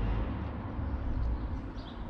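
Outdoor background: a low, uneven rumble with a short bird chirp near the end.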